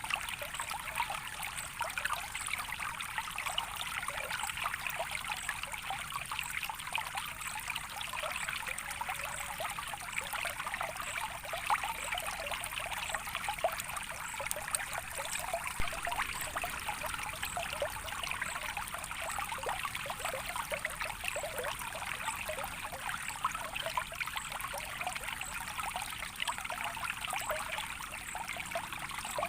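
Soft running water trickling and burbling steadily, like a small stream.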